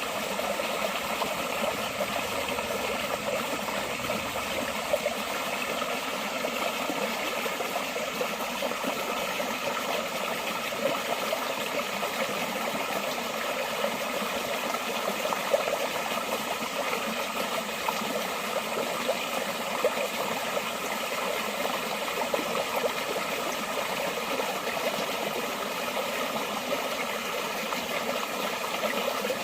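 Forest stream flowing steadily, an even rush of running water with a fine, constantly flickering splash.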